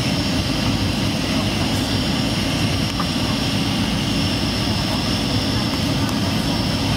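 Passenger airliner cabin noise: a steady roar of engines and airflow with a thin, constant high whine over it.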